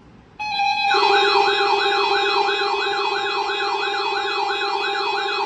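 Weather radio warning alarm signal, sounded as a test of the public warning system: a steady electronic tone comes in about half a second in. Under a second later a fast warbling, siren-like tone joins it, sweeping up and down about three times a second over steady held tones.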